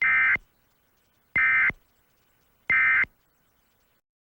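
Emergency Alert System end-of-message signal: three short digital data bursts, each about a third of a second long and a little over a second apart, marking the end of the alert message.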